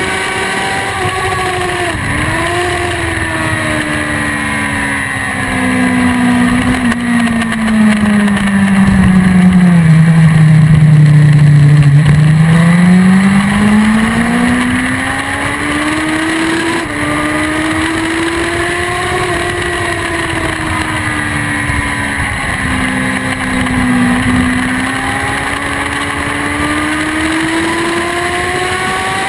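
BMW S1000RR inline-four sport bike at speed on track, recorded from a camera on the bike. The engine note sinks over several seconds as the bike slows for a corner, is loudest at its lowest pitch, then climbs again as it accelerates out, with a sudden jump in pitch near the middle (a gear change) and a further dip and rise later, over steady wind rush.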